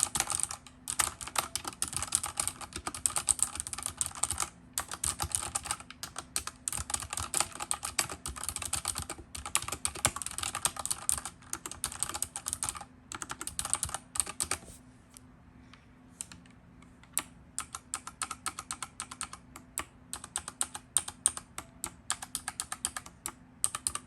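Redragon K630 60% mechanical keyboard being typed on: a fast, dense run of key clicks for about fourteen seconds, then slower, scattered keystrokes.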